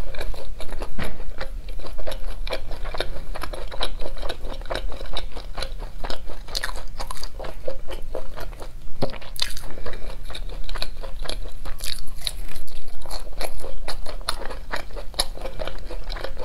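Close-miked biting and chewing of crisp pan-fried beef and vegetable patties: repeated crunchy bites and wet chewing clicks in an irregular run.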